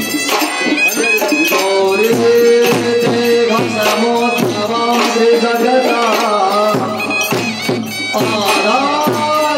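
Traditional Indian folk music: a drum keeps a steady beat of pitch-bending strokes under held melodic notes.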